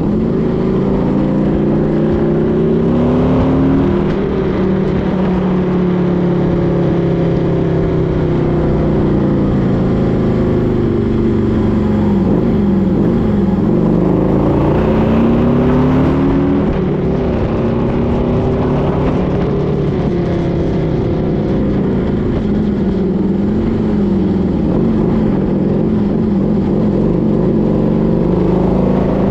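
Vehicle engine running under way, its pitch rising and falling as the speed changes, over a steady low rumble.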